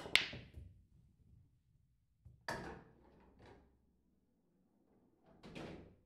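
Billiard balls being played: three shots of sharp clacks, the first a quick double click, each followed by fainter knocks and a low rumble of balls rolling on the table.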